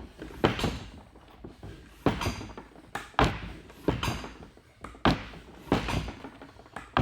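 Hand tyre pump worked in repeated strokes, each ending in a thunk with a short rush of air, about one stroke a second, pumping an e-scooter's tube-type tyre up toward 70 psi.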